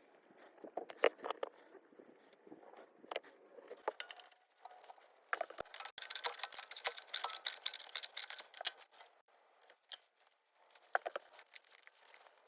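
Light metallic clinks and handling clatter of tools and fittings during hands-on work on a water heater's anode rod. About five seconds in comes a denser stretch of high, rattling noise lasting three or four seconds, then scattered clicks again.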